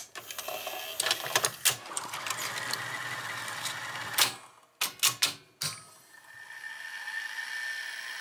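A Betamax cassette pushed into a Sony SLO-1400 Beta VCR, whose loading and tape-threading mechanism clicks and clunks: a run of clicks in the first two seconds, a clunk about four seconds in and a quick series of clicks about a second later. From about six seconds the machine runs with a steady, high whine.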